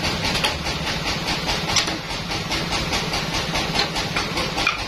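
Band sawmill running steadily, a continuous machine noise with a fast rattle.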